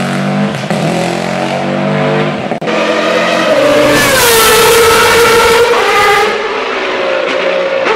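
Historic rally car engines at full throttle on a stage. About two and a half seconds in the sound breaks off, then a second car goes by loud, its engine note dropping as it passes, with a hiss of tyres and exhaust at its loudest.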